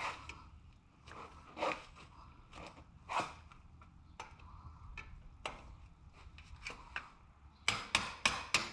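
Hand tools working on a motorcycle's shifter linkage: scattered metal clicks and knocks, then a quick run of sharp clicks near the end.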